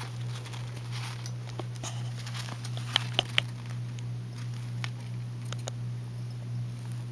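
Dwarf hamster scrabbling on a plastic liner and inside a plastic hideout: scattered light clicks and scratches, with three sharp clicks about three seconds in, over a steady low hum.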